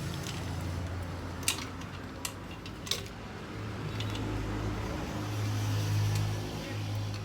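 A few sharp metallic clinks of a motorcycle drive chain being pulled off and handled, over a steady low hum.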